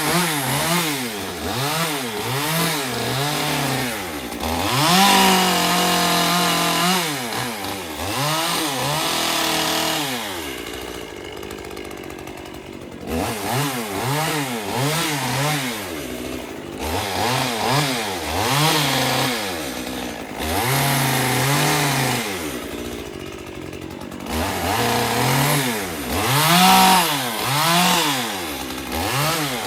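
Gasoline chainsaw cutting palm fronds, its engine revving up and falling back about once a second. It eases to a lower, steadier run twice, about eleven seconds in and again past twenty seconds.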